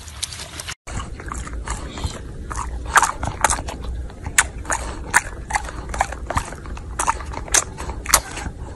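An English bulldog eating popcorn: sharp, irregular crunching clicks as it chews, over its heavy breathing.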